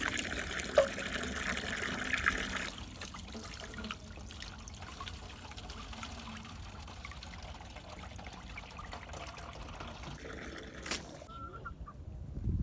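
Water pouring from a tipped metal jug into a stone trough, then a tap running steadily into a plastic jerrycan.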